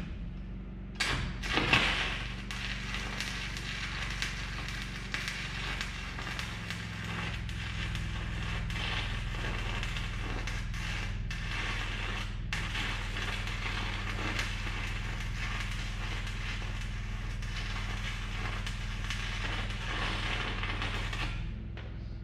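Electric arc welding: a continuous sputtering crackle of the arc that starts about a second in and stops just before the end, over a steady low hum. A weld bead is being laid on a bearing race in a tractor steering knuckle so that the race shrinks and can be knocked out.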